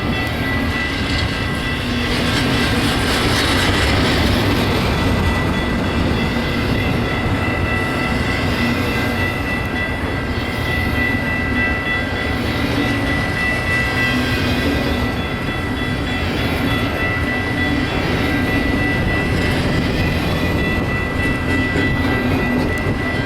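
Long intermodal double-stack freight train rolling past, its wheels clattering over the rails, with a steady high-pitched tone held throughout.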